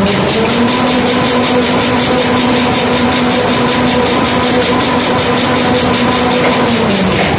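JL-L2200 kitchen wipe roll production machine running at speed: a rapid, regular mechanical clatter over a steady motor hum. The hum comes in just after the start and dies away near the end as the machine slows.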